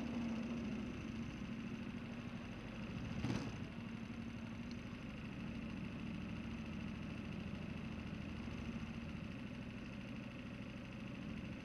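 Go-kart engine idling steadily after its note drops from a higher speed in the first half-second, with a single sharp knock about three seconds in.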